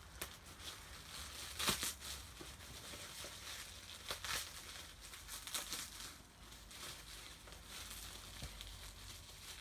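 Plastic packaging crinkling and crackling as it is handled, in scattered bursts, loudest about two seconds in and again around four seconds in.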